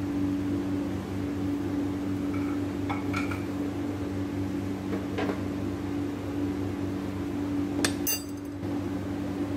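A steady low electrical hum under a few light clinks and knocks of kitchen utensils, spoon and cup against a steel mixing bowl, with a short clatter near the end.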